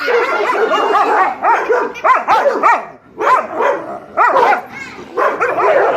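Pet dogs barking and yipping repeatedly in quick runs of short, pitched calls, with brief pauses between the runs.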